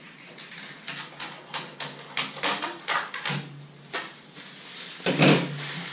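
Clear plastic wrapping crinkling and crackling irregularly as it is cut and pulled off a 3D printer's glass bed, with a louder sound about five seconds in.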